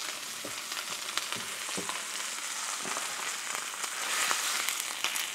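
Ribeye steak sizzling in butter in a hot cast iron skillet: a steady hiss with scattered small pops of spattering butter.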